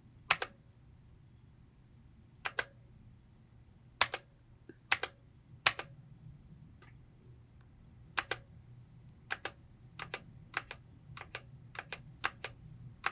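Scattered single key presses on a Heyday full-size wired mechanical keyboard, short sharp clicks at uneven spacing that come closer together in the second half, as the function keys are used to cycle the backlight colours.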